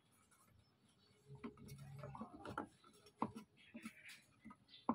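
Embossed metal number plate being handled and pushed into a plastic plate holder: scattered light clicks and taps, with a sharp click near the end.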